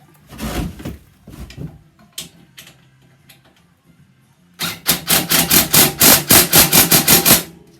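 Power screw gun driving a rock-slider bolt home: a short burst about half a second in, then about three seconds of loud, rapid hammering as the bolt is run down tight.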